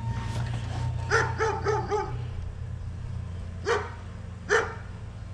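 A dog yipping and barking: four quick yips about a second in, then two single barks near the end, over a steady low hum.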